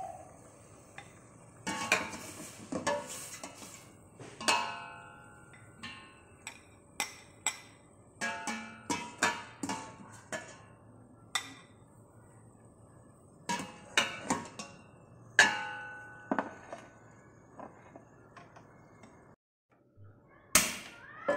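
Kitchenware clinking and knocking: metal utensils, bowls and pots struck one after another at irregular intervals, several clinks ringing on briefly. Near the end, after a short break, one sharp loud clack.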